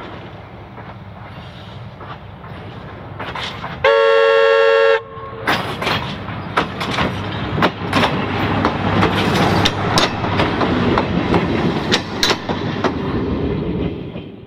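Tulloch-built DRC40 diesel railcar approaching with its engine running. It sounds its horn once for about a second, then passes close by with engine noise and a rapid clatter of wheel clicks, fading away near the end.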